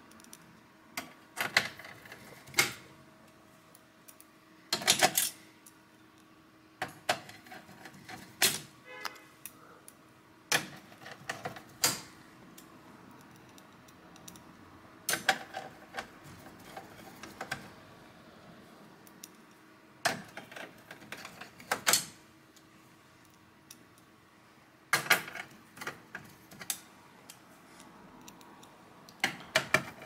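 Irregular clicks, taps and short clatters of a screwdriver and small parts against the sheet-metal chassis of an opened all-in-one computer, coming every second or two.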